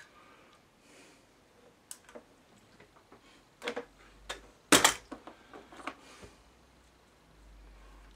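Scattered small clicks and knocks of tools and wire being handled at a workbench while a mains lead is fitted to a radio's terminal, with a sharper double click about halfway through.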